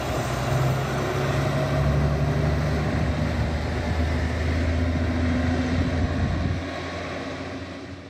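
A route bus's engine running as the bus pulls away. The steady low rumble fades out near the end.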